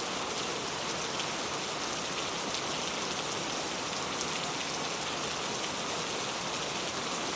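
Steady gentle rain falling on a surface, an even patter of drops that holds at one level throughout.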